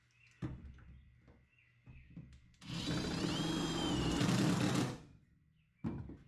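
Cordless drill driving a screw into a truck bed, running for about two seconds with a whine that rises and then holds steady. A few light clicks and knocks come before it.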